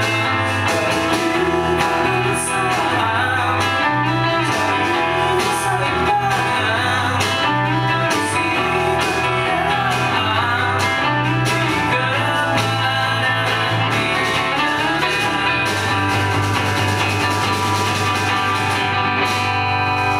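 Live rock band playing at a steady loud level, guitar-led with bass and a sung melody.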